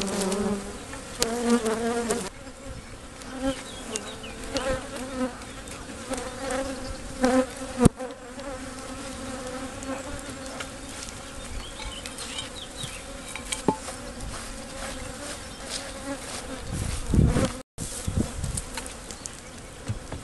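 Honeybees swarming around the hive, a steady, slightly wavering buzz. A few sharp knocks come from bricks and wood being handled.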